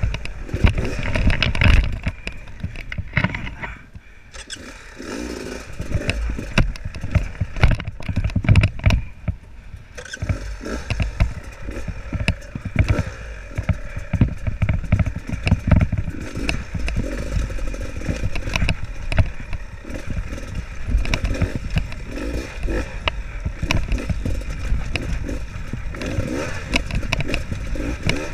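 Dirt bike engine running at low revs while descending a steep rocky track, with frequent knocks and clatter from the wheels and suspension striking rocks. The engine drops back and goes briefly quieter about four seconds in and again about ten seconds in.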